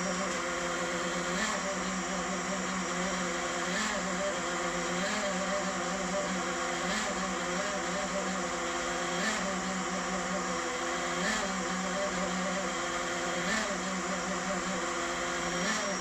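Creality K1 3D printer's mainboard fan running with a loud, strange steady whirring drone whose pitch wavers. This is the abnormal noise from the bottom of the printer that appears only while it boots up and stops once printing begins.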